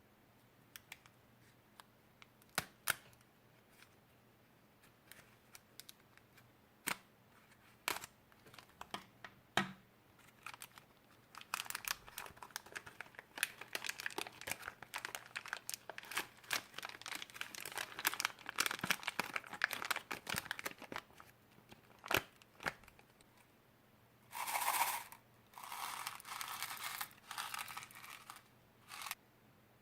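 Slime and its plastic containers being handled by hand: scattered sharp clicks and taps at first, then a long stretch of dense crackling and crinkling. Near the end come several short rustling bursts.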